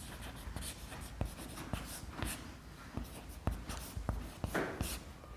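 Chalk writing on a chalkboard: short scratchy strokes with sharp taps as a word is written out.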